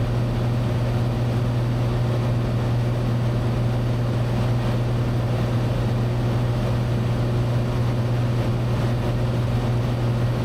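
Cessna 182T's six-cylinder Lycoming engine and propeller droning steadily in level cruise, heard as a constant low drone inside the cabin.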